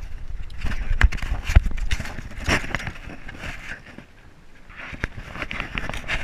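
Action camera being handled and set down: cloth rubbing against the housing and microphone, with a few sharp knocks about a second in. The scratchy rubbing returns in the second half.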